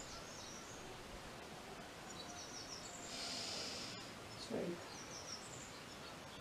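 A person's forceful breath out about three seconds in, heard as a short hiss, then a brief falling voiced sound a second later: exhalation during a Pilates twisting exercise. Birds chirp now and then in short, high, rapid notes.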